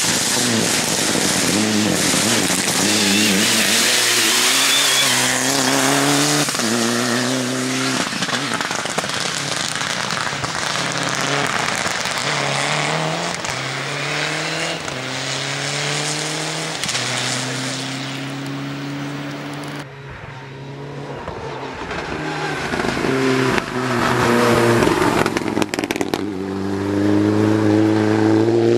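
Mitsubishi Lancer Evolution IX rally car's turbocharged four-cylinder engine driven hard through the gears, its pitch climbing and dropping at each shift over road and tyre noise. About two-thirds of the way in it eases off briefly, then accelerates hard again.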